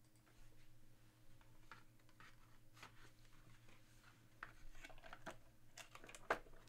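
Faint clicks and rustles of hands handling a box of graded trading-card slabs, growing more frequent in the last two seconds.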